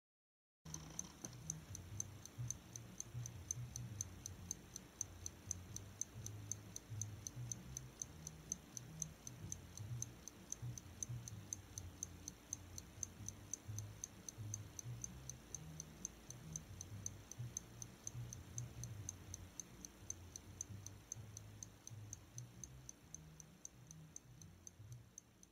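Mechanical clock ticking steadily, several even ticks a second, growing a little fainter near the end.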